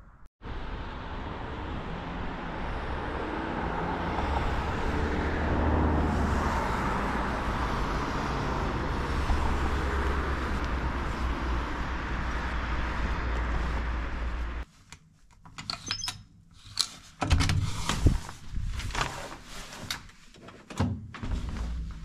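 Steady rumble and hiss of a moving vehicle, swelling slightly, which stops abruptly about 15 seconds in. It gives way to a string of irregular clicks, knocks and thunks.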